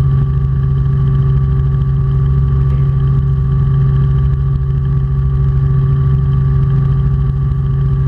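Robinson R44 Clipper II helicopter in flight, heard from inside the cabin: a loud, steady drone of engine and rotor, with a strong low hum and a few steady higher tones that do not change.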